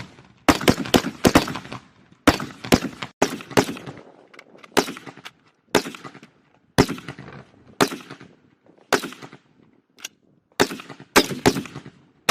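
Rifle fire on a range. It starts with quick strings of several shots, slows to single shots about once a second, and ends with another quick string.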